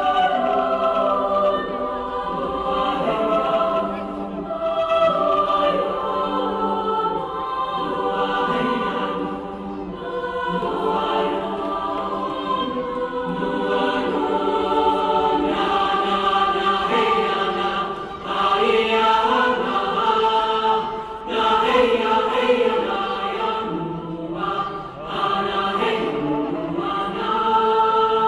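Choral music: a choir singing long held chords, coming from an outdoor stage.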